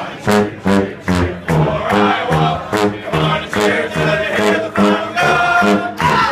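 A brass band of sousaphones and trombones playing a punchy, rhythmic tune, short loud notes about three a second over a moving bass line.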